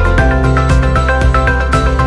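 Background music with a steady beat, a run of short melody notes and a held bass line.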